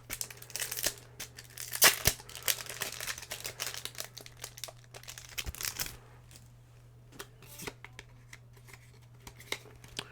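Foil Pokémon booster pack wrapper being crinkled and torn open close to the microphone, a dense crackling for about six seconds, loudest about two seconds in. After that only a few soft clicks and rustles.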